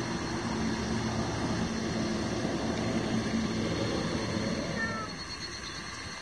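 A calico cat close by makes a low, steady rumble that comes in stretches of about a second and stops about five seconds in.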